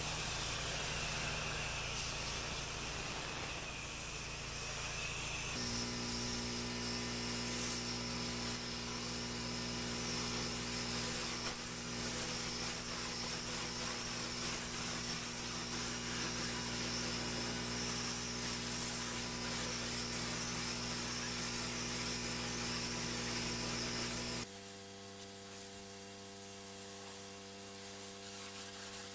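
Pressure washer running, the hiss of its water spray over a steady machine hum. The sound changes abruptly about six seconds in and again near the end.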